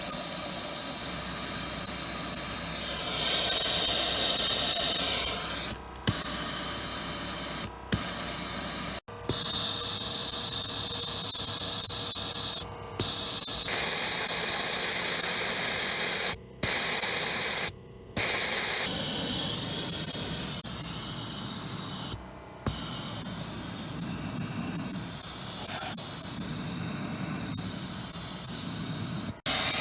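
Pressurised cleaning spray gun hissing as it sprays into a car's air-conditioning evaporator to wash out mould. It comes in long bursts that stop sharply for moments several times as the trigger is released, and turns louder and sharper twice.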